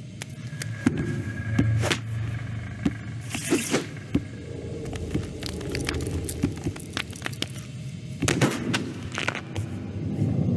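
Cartoon soundtrack sound effects: scattered sharp clicks, scrapes and crashes over a low steady hum, with two louder crashing bursts about three and a half and eight and a half seconds in.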